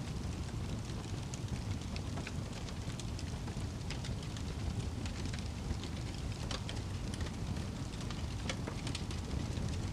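Wood fire burning in a fireplace: a steady low rumble of flames with scattered crackles and pops of burning logs, a few sharper snaps among them.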